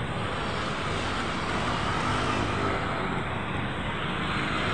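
Road traffic of cars and motorcycles passing on a multi-lane boulevard: a steady hiss of tyres and engines that swells slightly around the middle.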